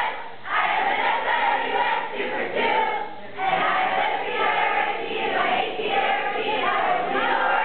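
A group cheer sung by many young voices together in unison, with short breaks between lines about half a second in and again about three seconds in.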